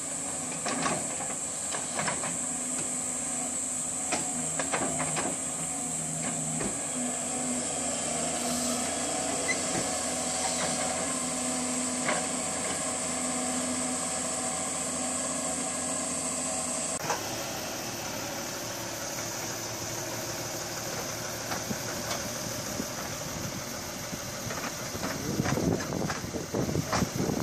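Wheeled excavator's diesel engine running while a rotating stone grab handles boulders, under a steady high hiss, with occasional knocks of rock. About two-thirds of the way through, the sound cuts to another wheeled excavator running, with a cluster of rock knocks and scrapes near the end as stones are set in place.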